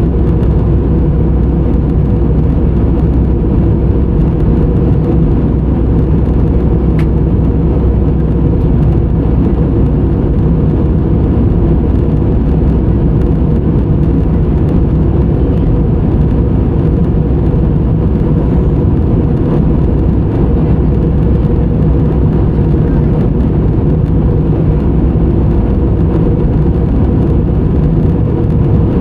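Steady drone of an airliner in flight heard inside the passenger cabin: jet engine and airflow noise, loud, even and unchanging, with a low hum of steady tones.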